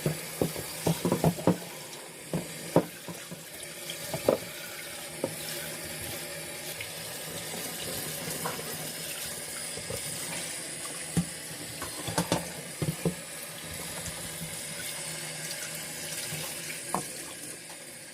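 Tap water running steadily into a sink, with scattered knocks and clatters of things being handled and rinsed under it.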